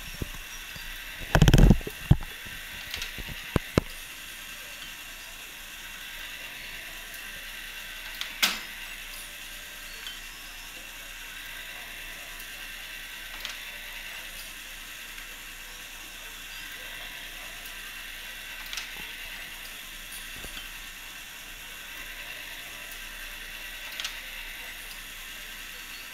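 Running scale model of a Mitsubishi marine diesel engine, its mechanism turning over with a steady whir and scattered clicks and knocks. The loudest is a short clatter about a second and a half in.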